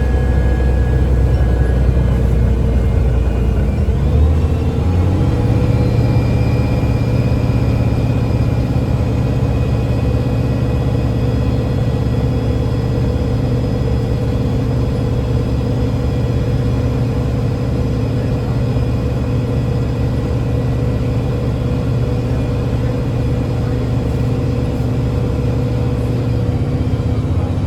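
Engine and Voith transmission of a 2009 Gillig BRT 40-foot transit bus under way, heard from on board. About four seconds in the engine note steps up, then holds steady, with thin steady whines above the rumble.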